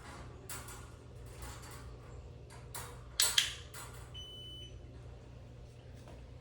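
A few light knocks and sharp clicks, the loudest a quick double click a little past three seconds, typical of a dog-training clicker, then one short high beep just after four seconds.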